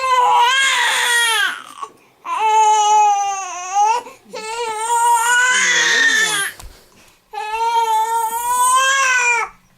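Infant crying hard in four long, high wails with short breaths between them: a hungry cry, which the parents take for wanting more milk after the feeding stopped.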